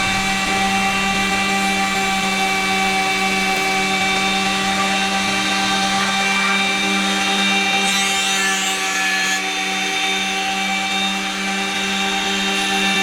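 Electric power tool motor running at a steady speed, a constant whine with a brief higher hiss about eight seconds in.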